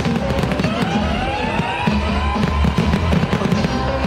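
Fireworks shells bursting and crackling in many quick sharp bangs, with music playing at the same time.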